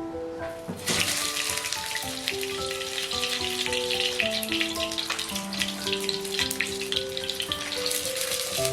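Background music of gentle sustained notes. About a second in, a dense crackling hiss starts up and carries on underneath it.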